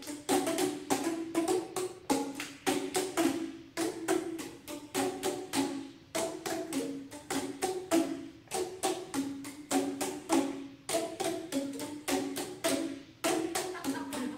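A group striking sound sticks, tuned plastic percussion tubes, in a quick rhythm of hollow pitched knocks on several different notes. The playing comes in short phrases with a brief break about every two seconds.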